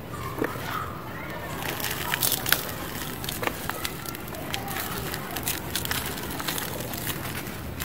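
Hands crumbling a dry, dusty lump of pure cement, which breaks apart with dense crunching and crackling.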